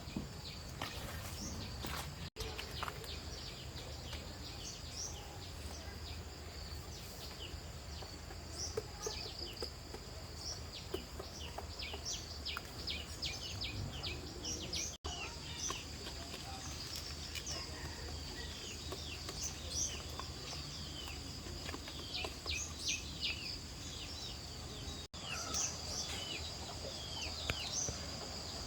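Birds chirping in many short, quick, falling calls over a steady high-pitched insect drone, with a faint low hum beneath.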